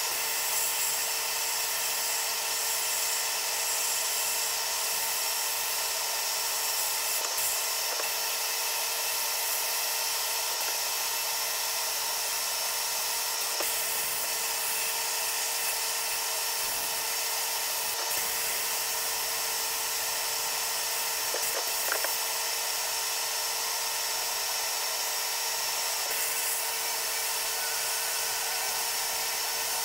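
Sandblasting gun in a blast cabinet, hissing steadily as compressed air and abrasive grit strip rust and paint off the pressed-steel body of a 1940s Buddy L toy dump truck, with a steady hum underneath.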